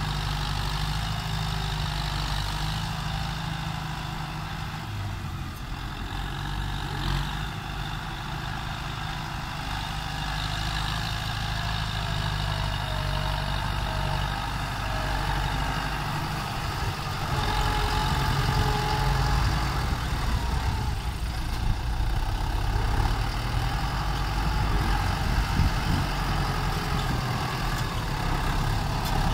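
Kubota tractor's diesel engine running steadily while it pushes soil with its front blade, growing louder a little over halfway through.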